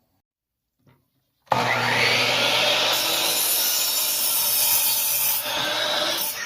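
Power saw cutting through 2x4 lumber: a steady cutting noise with motor hum starts suddenly about a second and a half in and lasts about five seconds, then the blade begins spinning down, its pitch falling near the end.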